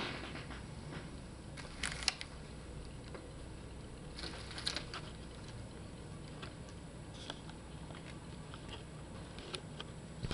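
Faint, scattered small clicks and brief rustles over a low steady hum, in a few clusters.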